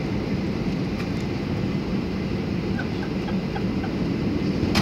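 Steady airliner cabin noise on the landing approach: engine and airflow running with a low hum. A few faint short chirps sound in the middle, and a short knock comes right at the end.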